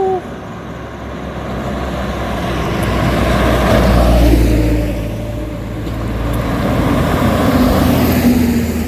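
Highway traffic passing: a horn cuts off right at the start, then a heavy vehicle's low engine rumble builds to a peak about four seconds in, eases, and swells again near the end as more traffic goes by.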